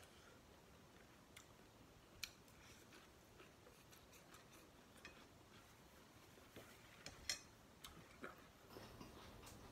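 Faint eating sounds: scattered small clicks and taps of chopsticks and a spoon against a glass bowl, with a few sharper clicks in the second half.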